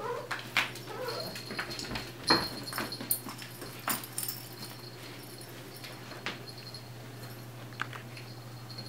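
A puppy whimpering in the first second or so, with scattered light knocks and scuffs as the puppy and a cat play around a fabric play tunnel.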